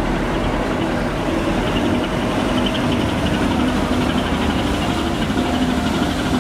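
Canal passenger boat's diesel engine running steadily as the boat passes close by: a low, even drone.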